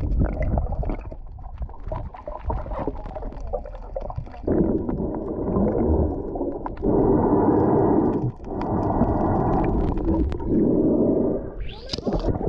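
Muffled underwater sound picked up by a submerged action camera: water gurgling and rumbling, with several loud, muffled swells of noise, each a second or two long, from about the middle onward. Just before the end comes a short rising splash as the camera comes up to the surface.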